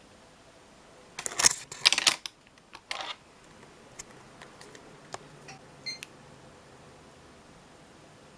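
A burst of plastic clicks and clatter from handling hardware, followed by a few single clicks and a short electronic beep about six seconds in.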